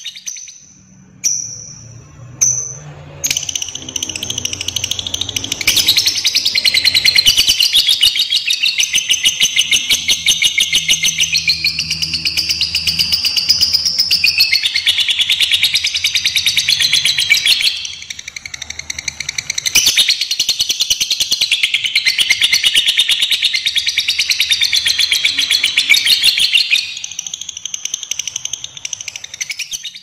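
Lovebird chattering in a long 'ngekek': a fast, high, continuous trill that runs on for more than twenty seconds, starting after two short calls and faltering briefly once about eighteen seconds in.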